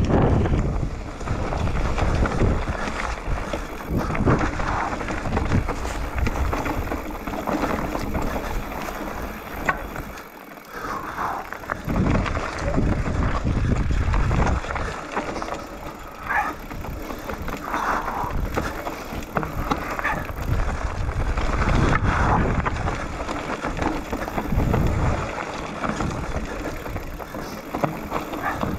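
Mountain bike riding down a rocky dirt trail: tyres rolling and crunching over loose stones and gravel, the bike rattling over the bumps, with loud rushing noise on the microphone.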